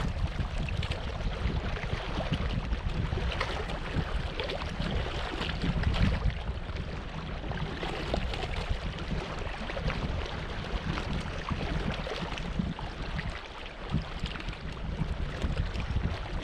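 Wind buffeting the microphone, an uneven low rumble with a rustling crackle over it.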